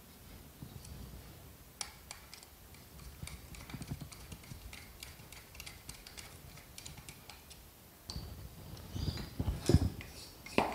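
Screwdriver and small screws clicking and ticking against the aluminium body of an SU carburettor as its suction chamber is fitted and screwed down, with a run of light clicks in the middle. From about 8 s there are louder knocks and bumps of the metal parts being handled.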